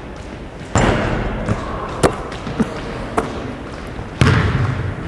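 Basketballs bouncing and thudding in an echoing gym. There are two loud hits, about a second in and near the end, and sharper single smacks between them.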